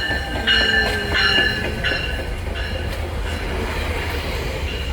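GO Transit commuter train pulling in: a steady low rumble, with high metallic squeals from the wheels and brakes that come and go several times.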